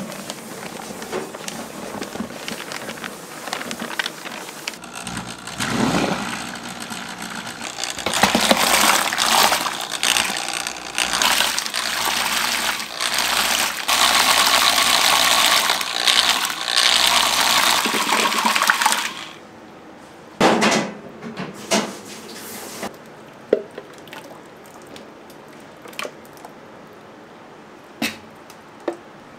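Water running hard, a loud, even rush that stops abruptly about two-thirds of the way through, followed by a few scattered clicks and knocks.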